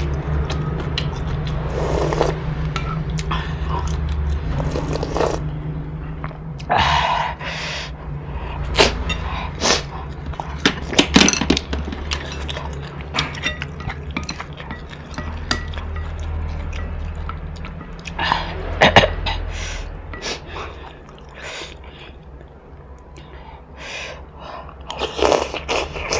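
Close-miked eating sounds: slurping instant noodles and spicy broth, chewing, and a metal spoon clicking against a ceramic bowl, over a steady low hum. A burst of slurps near the end as broth is sipped from the spoon.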